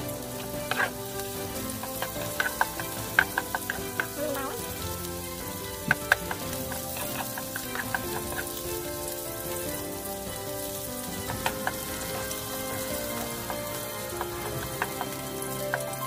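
Chopped garlic sizzling in hot oil in a metal pot, stirred with a spatula that clicks and scrapes against the pot again and again.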